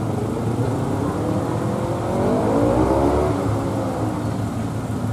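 A motor vehicle passing on the street, its engine note rising and then falling between about two and four seconds in, over a steady low rumble of traffic.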